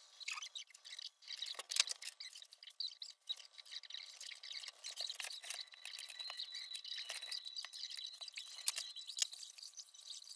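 Paper and plastic bag rustling with irregular light clicks and taps as thin balsa sheets and bagged parts from a model airplane kit are handled and sorted.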